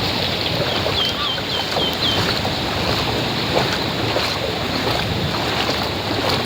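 Steady wash of sea surf with wind on the microphone, and a quick run of about six short high chirps between one and two seconds in.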